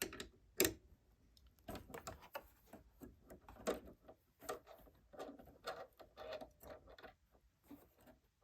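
Small screwdriver working loose the screw of a sewing machine's presser foot holder, with irregular metal clicks and scrapes as the screw turns and the holder is lifted off; a sharp click comes about half a second in.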